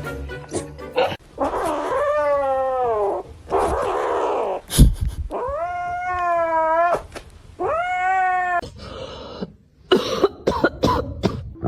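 Domestic cat yowling in three long, drawn-out calls, the first sliding down in pitch at its end, with hissing between the calls. A few sharp knocks come near the middle and near the end.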